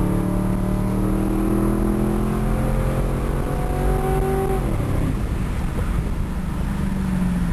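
Car engine at full throttle during a street race, heard from inside the cabin, its pitch climbing steadily through a long gear. At about four and a half seconds the note drops away sharply as the throttle is lifted, leaving lower engine and road noise.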